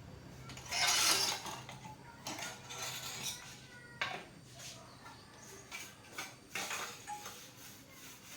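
Scattered clinks and knocks of hard objects being handled, with a brief louder scrape or rustle about a second in.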